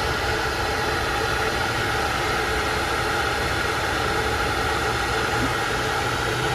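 Small electric travel kettle heating water, a steady hissing hum that comes before the boil.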